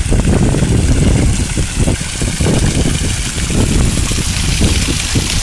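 Wind buffeting the microphone in irregular gusts, over a steady rushing hiss.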